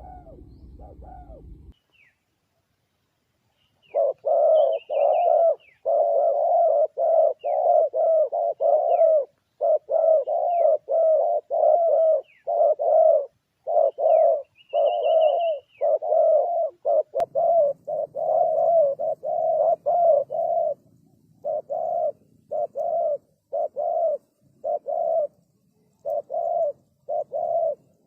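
Spotted dove cooing: a run of short, low coo notes repeated one after another with only brief gaps, starting a few seconds in after a short silence. Fainter high chirps of other small birds sound over the first half.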